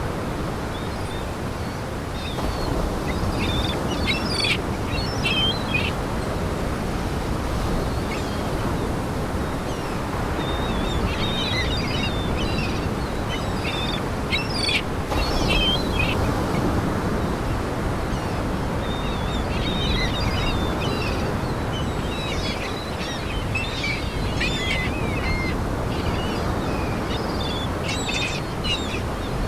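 A flock of seagulls calling, short high cries coming in clusters several times, over a steady low rushing noise.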